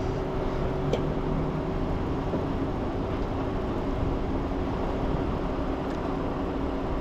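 A vehicle engine idling steadily with a constant low hum, and a faint click about a second in.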